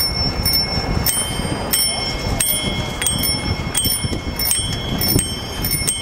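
Several bicycle bells in a group of riders ringing over and over, their strikes overlapping at different pitches, about three rings a second, with a low rumble underneath.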